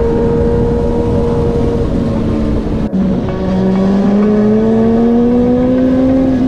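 Motorcycle engine pulling under acceleration, its pitch rising steadily. About three seconds in it dips briefly and drops in pitch, as on an upshift, then climbs again.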